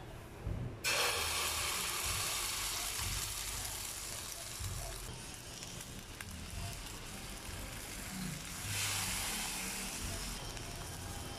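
Corned beef and egg mixture poured into hot oil in a frying pan, starting to sizzle suddenly about a second in and frying steadily. The sizzling grows louder again near the end, when the patty is turned over.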